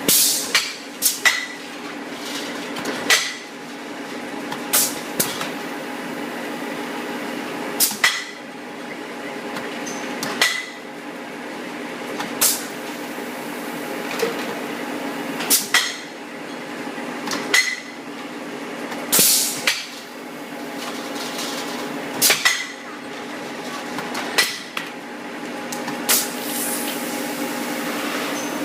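Manual blow-moulding machine for plastic bottles being cycled: sharp metallic clacks every one to three seconds, a few of them longer and noisier, over a steady low hum.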